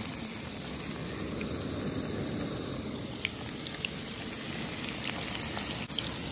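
Breaded perch fillets sizzling in hot oil in a skillet: a steady crackling with a few sharper pops.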